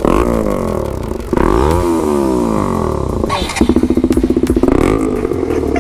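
KTM Duke 200's single-cylinder engine running through a loud aftermarket full-system exhaust. It is revved up and down, with sharp cracks about three seconds in, then held at steady revs with a fast pulsing beat.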